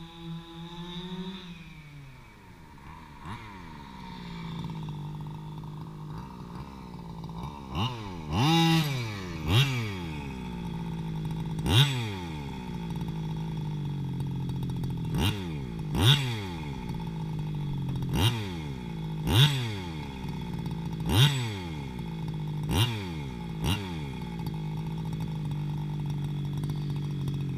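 Petrol two-stroke engine of a large-scale HPI Baja RC buggy idling, then from about eight seconds in blipped to high revs about ten times, each rev rising sharply and falling back to idle. On this nearly new engine the owner hears a strange metal rattle when it accelerates.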